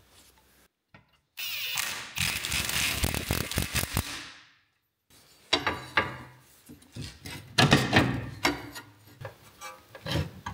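Ratchet wrench clicking rapidly for about three seconds as it turns a bolt on the front suspension. After a short pause come a series of separate metal clanks and knocks as a pry bar levers against the steering knuckle and control arm.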